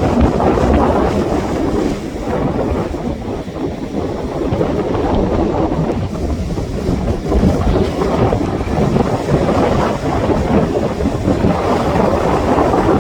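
Sea waves washing and breaking on the shore, with wind buffeting the microphone. The sound swells louder a few times, about a second in, around the middle and near the end.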